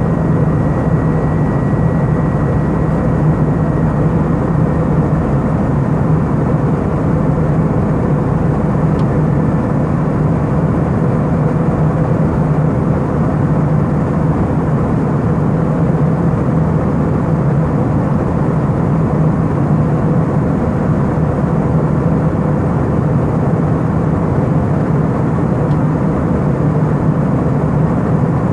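Airbus A319 cabin noise in flight: a steady low rushing drone of the jet engines and airflow, with faint steady hums over it.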